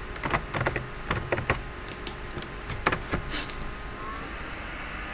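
Computer mouse and keyboard clicks, several irregular ones over the first three seconds or so. A steady hum with a faint high whine sets in about four seconds in.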